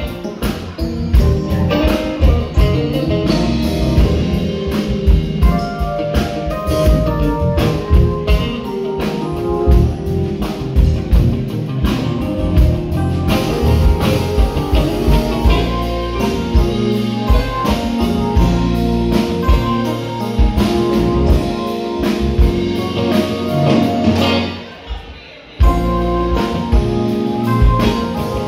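Live band playing an instrumental passage on drum kit and guitar with a steady beat. Near the end the band stops for about a second, then comes back in.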